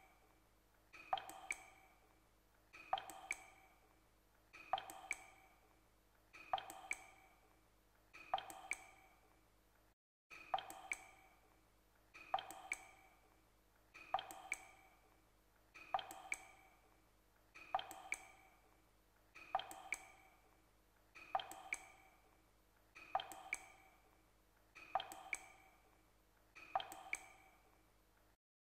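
Water dripping from a garden tap's hose connector, about one drop every two seconds, each landing with a short ringing plink. There is a brief break about ten seconds in.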